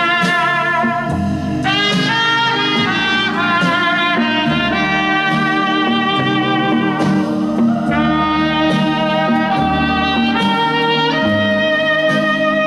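Recorded music, a held, wavering lead melody over a bass line, played back through Celestion SL6si loudspeakers driven by an RCF AM-30 vintage tube amplifier.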